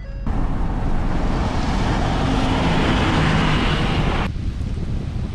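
Vehicle engine running with a steady low rumble, with wind buffeting the microphone that cuts off suddenly about four seconds in.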